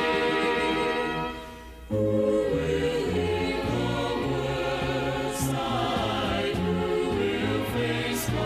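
Gospel song: a choir sings with band accompaniment. The music thins out briefly about a second and a half in, then comes back in with a stepping bass line.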